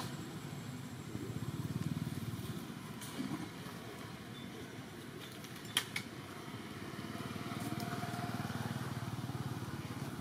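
Low rumble of a distant motor that swells and fades twice, with a single sharp click about six seconds in.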